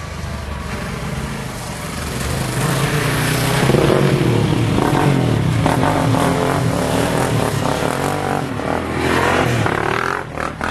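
A small engine-driven vehicle passing close by. It grows louder about two seconds in, runs loud for several seconds with its engine pitch rising and falling, and eases off near the end.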